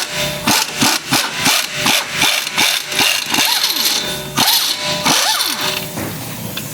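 3/8-inch-drive impact gun with a 19mm socket hammering the nut off a front sway-bar (stabilizer) link bolt, with rapid strokes and its pitch rising and falling, stopping about a second before the end. The nut comes off easily.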